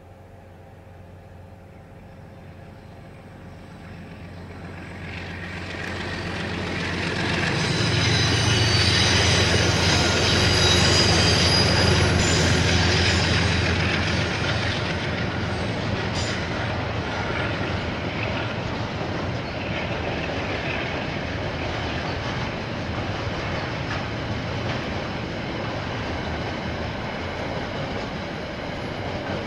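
KiwiRail diesel freight train passing. The locomotive's low engine rumble swells to its loudest about eight to thirteen seconds in, with thin high-pitched tones over it, then the container wagons roll past with a steady rolling noise.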